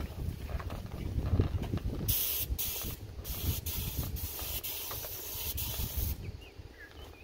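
Compressed-air spray gun spraying paint: a loud, high hiss that starts sharply about two seconds in and cuts off about four seconds later, with a few brief breaks as the trigger is let go. A low rumble runs underneath throughout.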